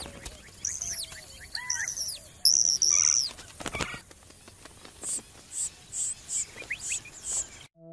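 Small birds calling: thin, high, down-slurred whistles over the first few seconds, then a run of short high chips about two a second, with wingbeats as a Gila woodpecker flies from its nest hole in a saguaro.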